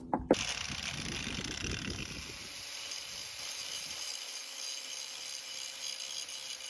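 A few knuckle knocks on a fiberglass boat hull, then an angle grinder with a sanding disc grinding paint and fiberglass on the hull: a steady hiss over a faint motor whine.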